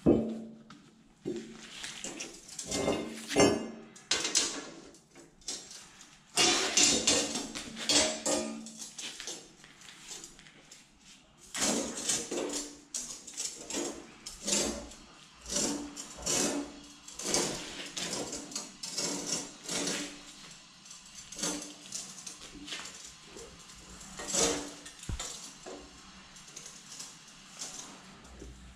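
Flat steel earthing strip being bent by hand with a rebar bending lever on a concrete floor: irregular metallic clanks, knocks and scrapes, some with a short ring.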